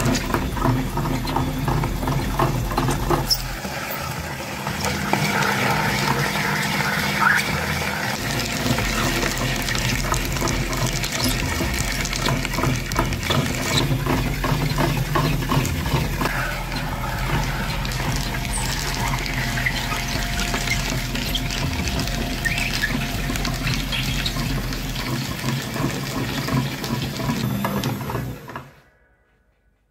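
Electric meat grinder running with a steady motor hum while its auger crushes coloured eggs, the shells crackling and crunching through the plate. The motor cuts off abruptly shortly before the end as it is switched off.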